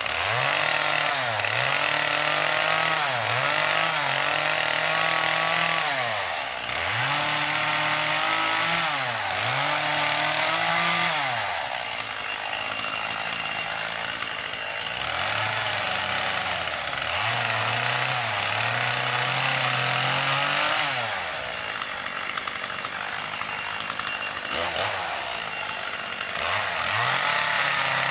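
Gas chainsaw carving wood, the engine revving up and holding under load, then dropping back toward idle again and again between cuts.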